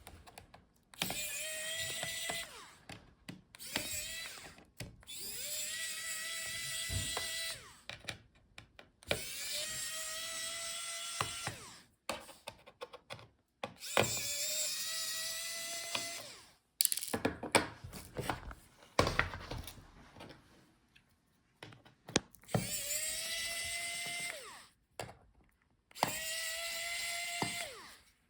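Electric screwdriver backing out a laptop's bottom-case screws. The motor spins up to a steady whine for two to three seconds at a time, about six times, with small clicks and taps between the runs.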